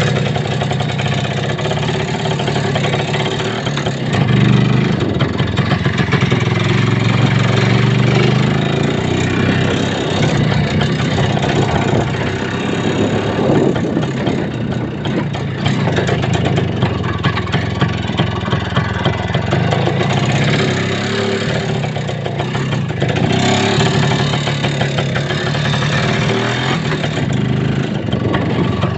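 A vehicle engine running while being driven, its pitch rising and falling with engine speed, with frequent knocks and rattles from the vehicle jolting along.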